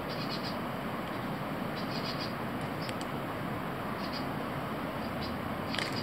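Steady background hiss with faint, short high-pitched chirps every second or two.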